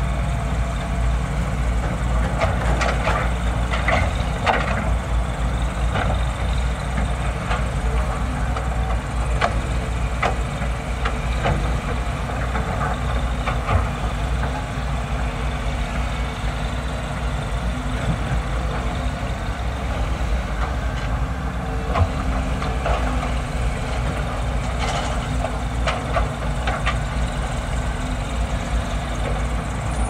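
Several hydraulic excavators' diesel engines running steadily, with scattered knocks and clanks throughout.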